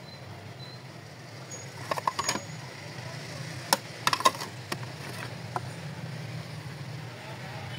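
Plates clinking against each other as they are handled: a cluster of short ringing clinks about two seconds in, another around four seconds, then a few lighter taps, over a steady low hum.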